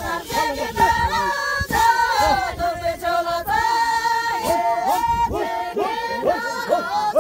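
A group of women singing a song together in unison, unaccompanied, with long held notes.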